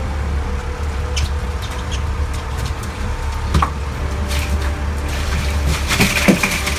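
Steady low rumble of a charter boat's engine running at idle, with scattered clicks and knocks of fishing tackle handled on deck.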